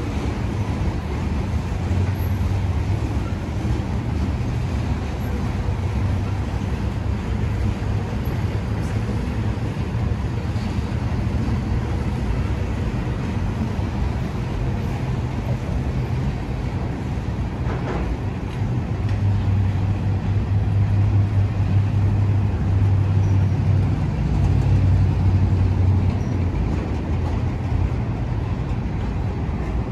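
Steady low rumble of a slow freight train of tank cars rolling past, mixed with road traffic. An engine drone swells louder for several seconds past the middle, then eases off.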